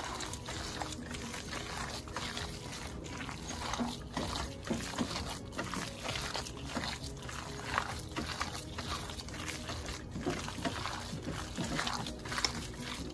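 Wet squelching and squishing of raw ground beef mixed with eggs and breadcrumbs, kneaded and squeezed by a gloved hand in a stainless steel bowl. The squishes come irregularly, one after another.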